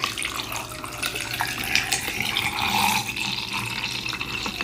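Water pouring steadily, with a few light clicks and knocks.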